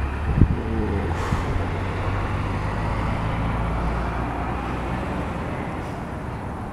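Low, drawn-out thunder rumble from a thunderstorm, fading over the last few seconds. A sharp knock about half a second in is the loudest moment.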